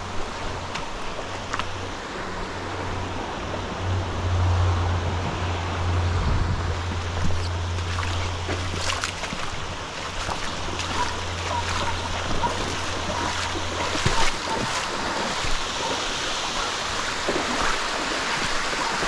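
Shallow creek water rushing over shale bedrock in a steady wash, with scattered clicks and crunches of footsteps on wet shale. A low steady drone runs underneath for most of the first two-thirds.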